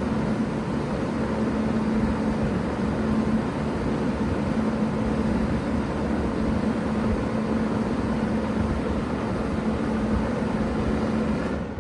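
A 3-ton Bard wall-hung heat pump running in cooling mode: a steady hum from the compressor under the noise of its fans. Near the end the sound drops off sharply as the unit begins shutting down.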